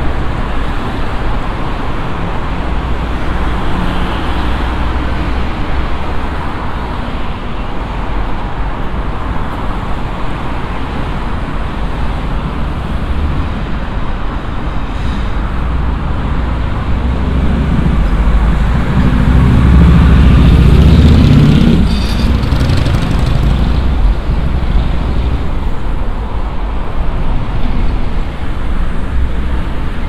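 Steady city road traffic, with one vehicle passing close about two-thirds of the way through: a low rumble that builds, peaks, then drops away quickly.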